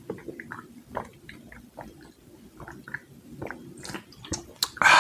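A man gulping a drink from a can close to the microphone, a string of short swallowing sounds, with a louder burst of noise right at the end.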